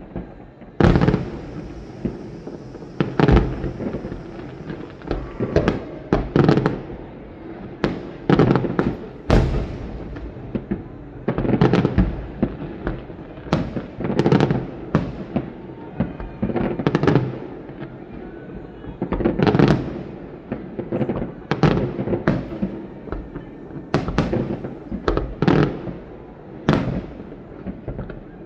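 Fireworks display: aerial shells bursting one after another, loud sharp bangs about every second or so, each trailing off in a rolling echo.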